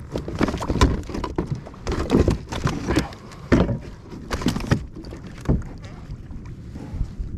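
Irregular bumps, knocks and rustles on a plastic fishing kayak as the fishing line and a freshly landed fish are handled, coming in short uneven bursts.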